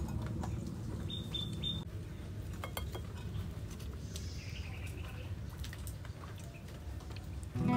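A few short, high bird chirps, three quick ones about a second in and another near four seconds, over a low steady background rumble, with a couple of faint clicks near three seconds in.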